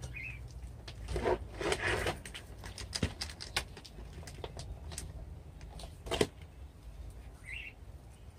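Potting soil tipped from a plastic nursery pot into a hanging pot and worked in by gloved hands: uneven rustling and scraping with light clicks and knocks of the pot. The loudest scrapes come about a second or two in, with another sharp one about six seconds in.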